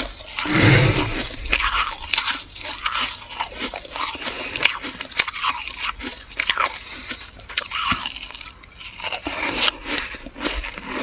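Dry, flaky freezer frost crunching in many short, irregular crackles, with a louder crunch just under a second in.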